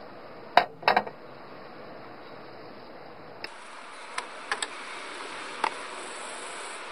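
Small hard parts clicking and tapping as a hose adapter and fittings are handled: two sharp clicks about half a second apart near the start, then a few lighter clicks later, over steady background noise.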